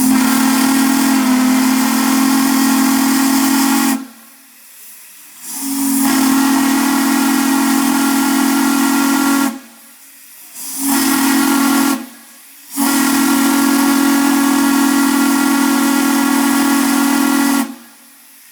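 Steam locomotive whistle off a Chesapeake and Ohio passenger engine, blown in four blasts: long, long, short, long, the railroad grade-crossing signal. Each blast is a steady low tone with a rush of steam hiss and cuts off cleanly.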